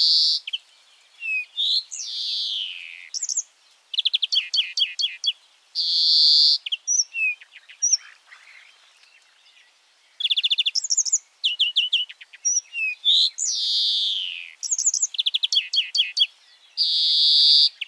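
European greenfinch singing: rapid twittering trills mixed with short harsh buzzes, and twice a long wheeze that falls in pitch.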